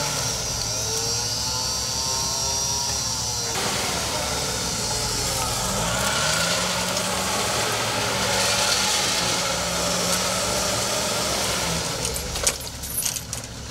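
Off-road 4x4 engine running under load on a rocky track, its pitch climbing about six seconds in as it revs, with a mechanical whine over it.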